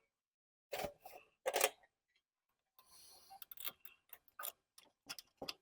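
Metal hand tools and parts being handled: two clattering knocks about a second in, then a run of quick, irregular ticking clicks.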